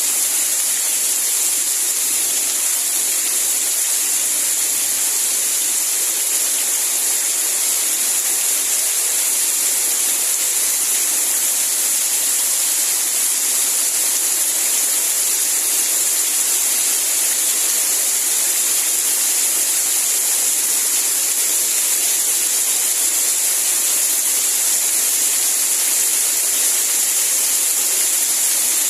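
Steady rain: an even, unbroken hiss of water, strongest in the high range with almost no low rumble.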